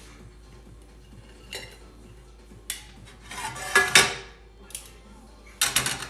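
Metal kitchen utensils clattering: a spatula, tongs and steel ring moulds knocking and scraping against a non-stick pan and a plate in several short bursts. The longest and loudest rattle comes about four seconds in, with a quick cluster of clinks near the end.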